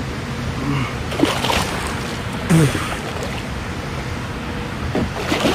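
Water sloshing and splashing around a kayak, with wind rumbling on the microphone and a few sharper splashes about a second and a half in and near the end. A man's voice makes two short sounds.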